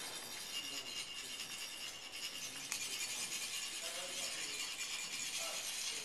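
Metal chak-pur funnels rubbed to trickle coloured sand onto a sand mandala: a continuous fine, grainy rasping with small clinks.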